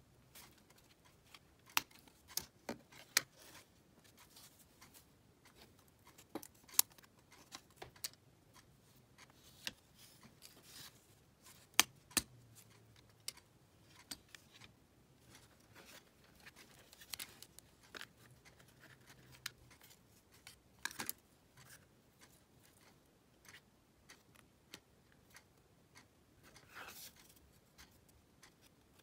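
Thin laser-cut plywood puzzle parts being pressed out of their sheet and handled: irregular sharp clicks and snaps as the small tabs break, with light wooden taps and brief rubbing.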